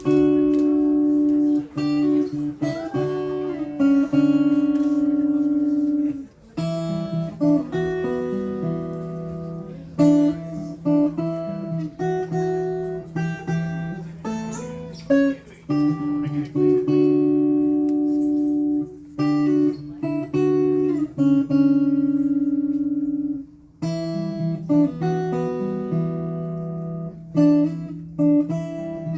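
Acoustic guitar playing ringing chords that change every second or two, with a few brief breaks between phrases.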